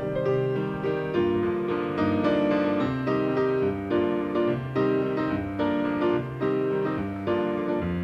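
Background piano music: a gentle melody of struck notes over low held chords, in a steady rhythm.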